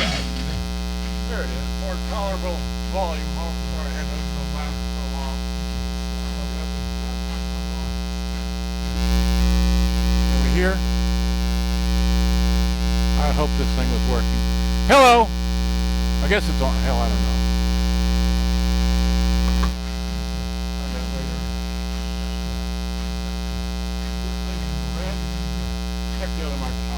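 Steady mains hum from a Prosonic PQR 9962 boombox, the sign of a bad ground inside the set. It gets louder about nine seconds in and drops back about twenty seconds in, with a few faint sliding tones over it.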